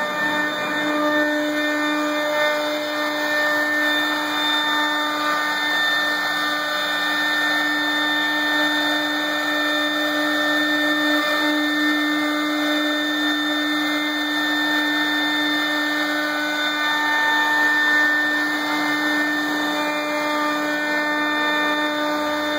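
High-speed milling spindle on a KUKA six-axis robot arm running with a steady whine while its bit cuts MDF, the noise of the cut mixed in throughout.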